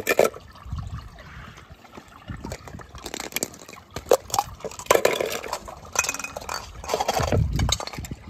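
Small toy cars splashing into water, with a string of sharp splashes and clinks, the first right at the start.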